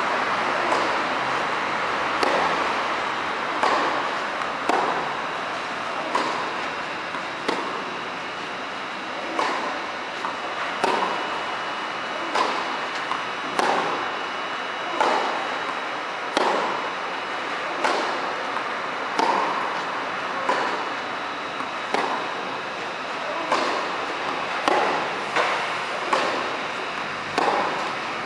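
Tennis ball struck by rackets in a baseline rally, one sharp pock about every second and a half as the two players trade groundstrokes, over a steady background hiss.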